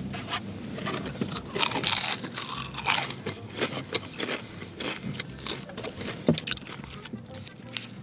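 Crunchy biting into a crispy deep-fried wonton, with the loudest crunches about two to three seconds in, then a string of smaller crackling chews.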